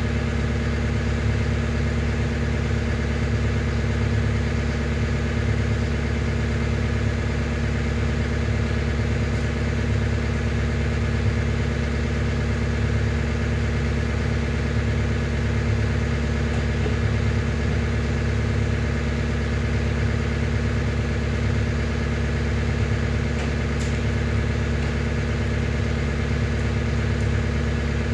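Engine of the yellow loader carrying a Cat BU118 sweeper attachment, idling steadily.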